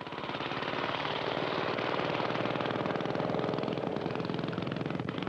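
Go-kart's small engine running steadily, a rapid, even train of firing pulses that cuts in suddenly.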